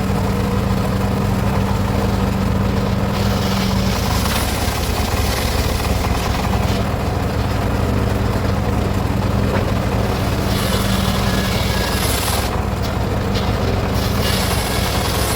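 Circular saw rig running steadily with a low mechanical hum, while a higher hiss swells and drops for a few seconds at a time as the blade cuts teak.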